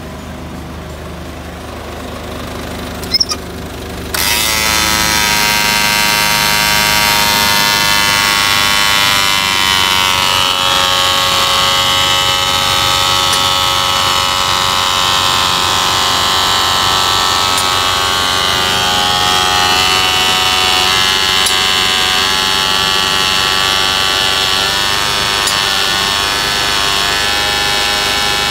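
Isuzu Giga truck's diesel engine idling steadily. After a click about three seconds in, it becomes suddenly much louder and fuller, heard close up at the engine, with many high tones over the running.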